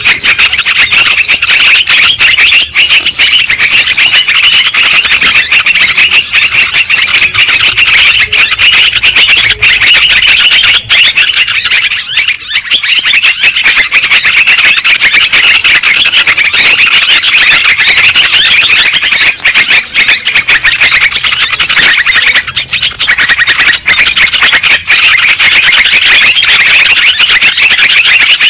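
Loud lure recording of yellow-vented bulbul (trucuk) calls for trapping birds: dense, continuous, rapid chattering, with a short dip about twelve seconds in.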